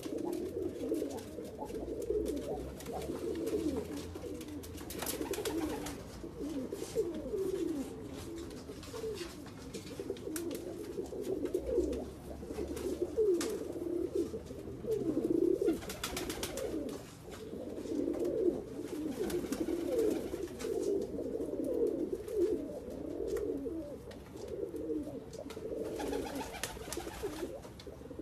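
Several domestic pigeons cooing at once, their low, wavering coos overlapping continuously, with a few brief noisy sounds in between.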